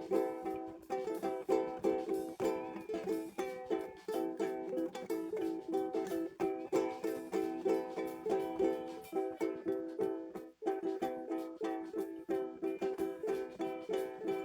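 Acoustic guitar strummed in a steady rhythm of chords, with a brief break about ten and a half seconds in.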